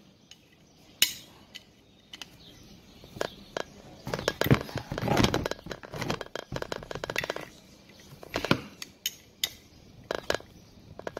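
Screwdriver clinking and scraping against the metal end cover of an electric fan motor as its cover screws are tightened. Scattered sharp metallic clicks, with a busier stretch of clicking and scraping in the middle.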